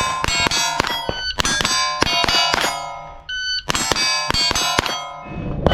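Rapid .22 rimfire shots with steel plate targets ringing as they are hit, many impacts in quick strings. A short electronic beep, like a shot timer's start signal, sounds about three seconds in.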